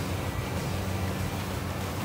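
Steady low hum of a boat's engine running, with an even hiss over it.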